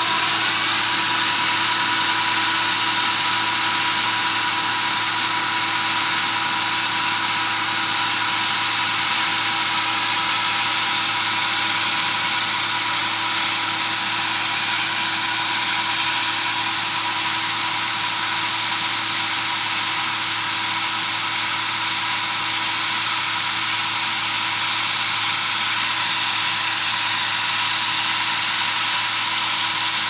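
Massey Ferguson 9895 combine harvester running steadily while cutting and threshing wheat: a constant machine hum with several steady whining tones over a broad rushing noise.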